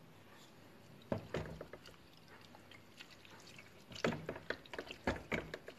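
A pot of mung bean and sweet potato leaf stew being stirred: liquid sloshing, with clicks and knocks of the spoon against the metal pot in bursts about one, four and five seconds in.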